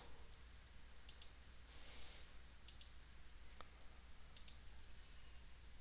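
Faint computer mouse clicks, a few short paired clicks spread over several seconds, over a low steady hum.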